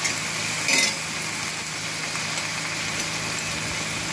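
Onions, tomato, green chillies and ginger-garlic paste frying in hot oil with a little water in a karahi, a steady sizzle, with one brief scrape of the metal spatula about a second in.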